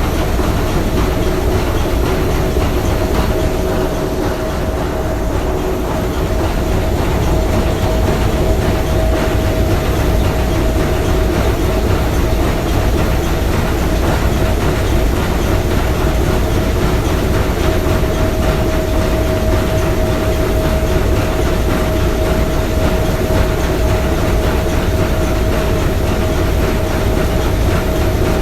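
Three-cylinder triple-expansion marine steam engine running steadily: a dense mechanical clatter over a deep rumble, with a faint steady whine.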